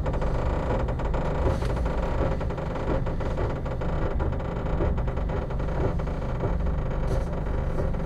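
Sleeper train running, heard from inside its compartment: a steady low rumble with a constant patter of small rattles and clicks from the carriage.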